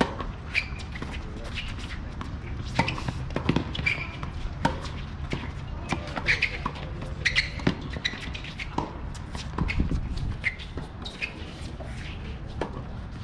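Tennis balls being struck by rackets and bouncing on a hard court during a doubles rally: an irregular string of sharp hits and bounces.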